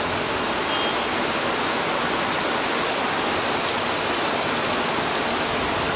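Steady rain falling during a thunderstorm: an even, unbroken hiss of rain with no thunder clap or rumble standing out.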